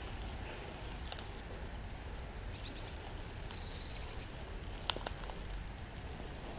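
Outdoor marsh ambience with a steady faint high hiss. About halfway through comes a quick run of short high chirps followed by a brief buzzy call, with a couple of sharp clicks.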